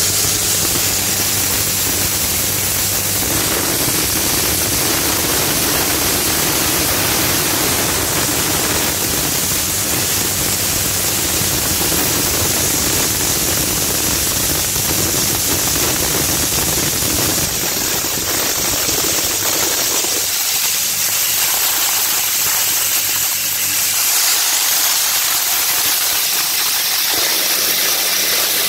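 Maize crushing machine running and grinding maize into meal: a loud, steady rushing noise, with a low machine hum under it at the start and again near the end.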